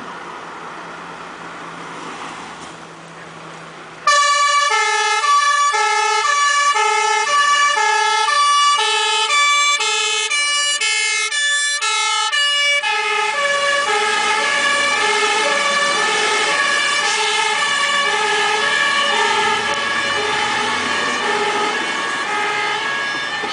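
Dutch fire service two-tone siren. It switches on suddenly about four seconds in, after a low engine hum, and alternates quickly between two notes. From about halfway on the notes blur and overlap as the vehicles pull away.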